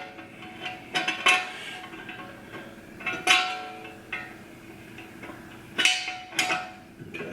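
Metal transmission parts knocking and clanking against the aluminium case as the low-reverse band is set into a 48RE transmission, about five separate knocks. Faint music runs underneath.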